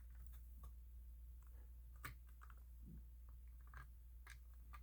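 Near silence over a steady low hum, with a few faint clicks from handling a smoke and carbon monoxide alarm and pressing its test button. The alarm stays silent because it is broken.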